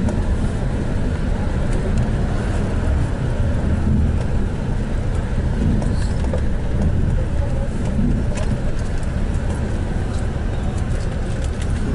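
Steady low rumble of a moving road vehicle, engine and tyre noise running evenly.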